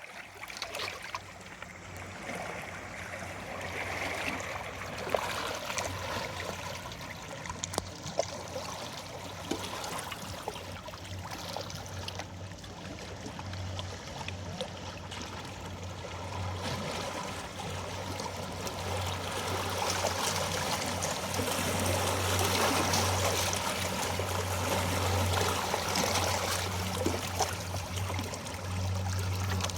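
Small waves lapping and washing onto a Lake Michigan shoreline, with splashing and trickling water, growing louder past the middle.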